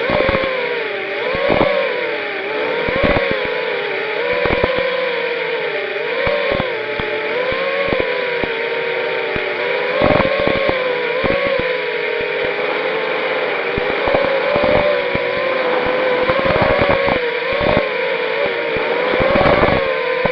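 Brushless motors of a 250-size racing quadcopter whining in flight. The pitch rises and falls every second or two with throttle, and irregular crackling clicks run through the whine. The owner takes the grinding to be a loose magnet in one motor.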